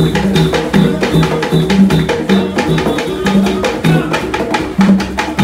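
Live drum and percussion music: a fast, steady rhythm of struck drums, alternating between two low pitched notes.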